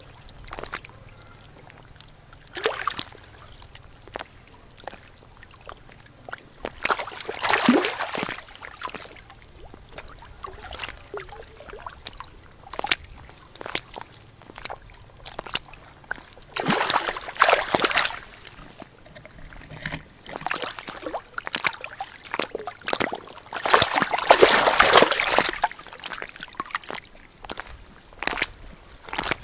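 Water splashing and sloshing in the shallows as a large fish thrashes and is grabbed by hand. There are three loud bouts of splashing, each lasting a second or two, with small splashes and drips in between.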